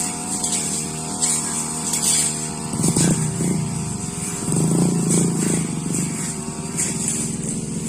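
Petrol brush cutter engine running steadily at high speed. It gets louder and rougher briefly about three seconds in, and again for about a second around the five-second mark, as the cutter works through grass and saplings.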